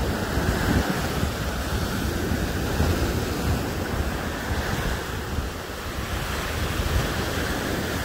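Small waves breaking and washing up onto a sandy beach, with wind buffeting the microphone.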